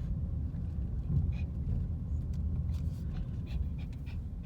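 A road vehicle driving: a steady low rumble of engine and road noise, with scattered light clicks.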